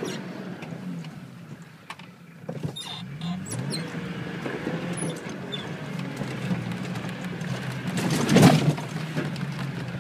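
Nissan Patrol's 2.8-litre diesel engine heard from inside the cab while driving over rough ground, its revs rising and falling, with scattered rattles and clicks from the body. About eight and a half seconds in comes a loud thump and rattle as the vehicle jolts.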